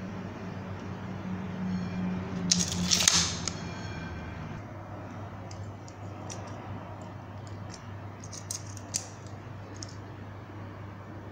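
A steel tape measure's blade retracting into its case with a brief metallic rattling rush about three seconds in, then scattered light clicks of hard plastic toy parts being handled and snapped together, over a low steady hum.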